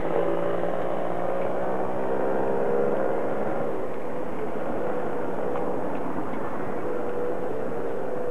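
A motor engine drones steadily, its pitch sinking slightly over the first few seconds and then holding.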